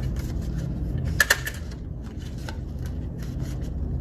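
Construction paper rustling as paper cutouts are handled and lined up in a small stapler, with two light clicks about a second in.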